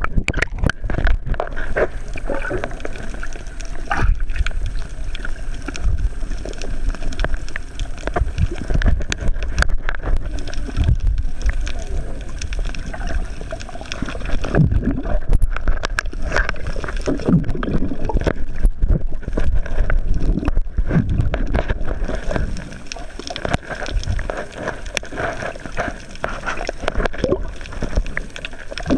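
Water sloshing and gurgling around a camera held just below the sea surface, heard muffled through the waterproof housing, with a constant low rumble and many small clicks and knocks.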